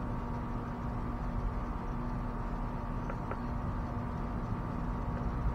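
Steady mechanical hum with a low rumble, and two faint ticks about three seconds in.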